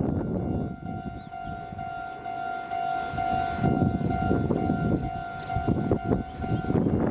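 Japanese level-crossing electronic warning bell ringing 'kan-kan' in a rapid, even repeating tone, over a rumble and clatter as a train approaches on the Meitetsu line.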